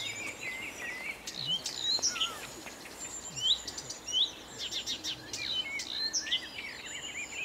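Blyth's reed warbler singing: an unbroken run of varied, quick phrases of sweeping whistled notes and sharp clicks, with some note shapes repeated.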